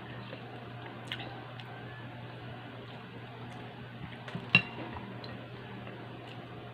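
Eating with the bare hand: fingers working through saucy chicken and chewing, with soft wet squishing. There is a faint click about a second in and a sharp click about four and a half seconds in, over a steady low hum.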